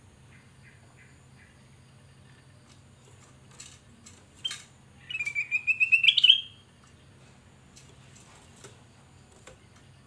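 Kutilang emas (ruby-throated bulbul) song: a rapid, pulsed phrase of about a second and a half that rises in pitch, about five seconds in, after a few faint chirps and a couple of sharp knocks.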